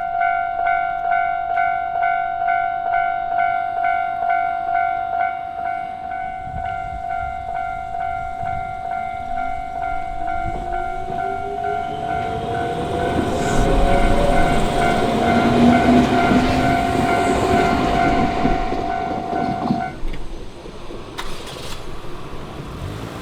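Japanese railway level-crossing alarm ringing in a steady repeating pattern while an electric train of the Shizuoka Railway approaches and passes. A rising whine comes in with the train, and the wheel and running noise are loudest past the middle. Near the end the crossing alarm stops.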